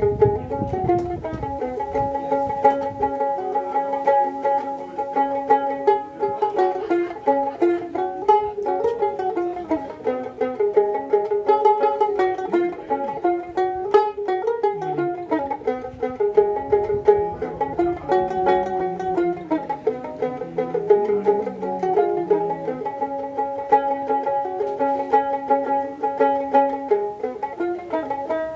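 A tungna, the small skin-faced Himalayan plucked lute, played solo: a continuous melody of plucked notes.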